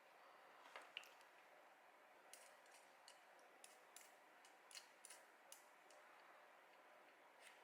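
Faint, irregular clicks and ticks, about a dozen sharp ones, from small 3D-printed plastic parts being handled.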